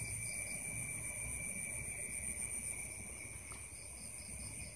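Night chorus of crickets and other insects trilling steadily at several high pitches. One pulsing trill drops out about a second in and starts again near the end.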